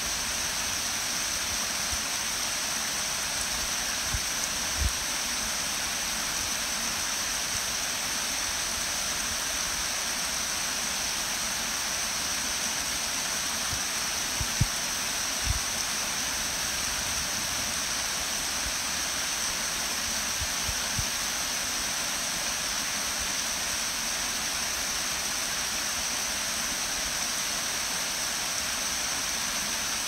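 Small creek waterfall cascading over rock ledges: a steady rush of falling water, with a few brief low thumps around five and fifteen seconds in.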